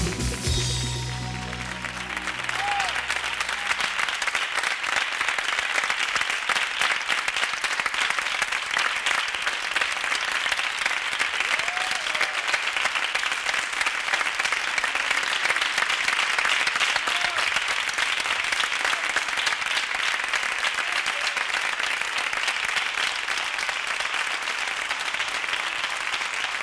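A piece of music dies away in the first few seconds, then an audience applauds steadily for the rest of the time, as on a live concert recording.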